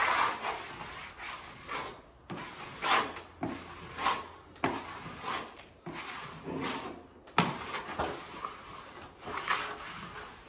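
Microfiber cloth wiping across freshly hung wallpaper: a run of short rubbing swishes, roughly one a second, with a couple of sharp knocks a little after the middle.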